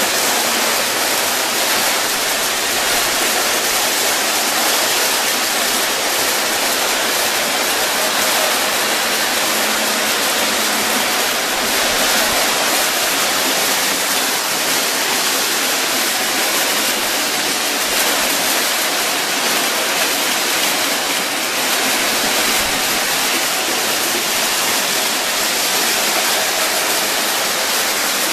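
Several O-gauge Lionel and Williams model trains running together on three-rail tinplate tubular track: a steady, even rushing noise of wheels and motors on the metal rails.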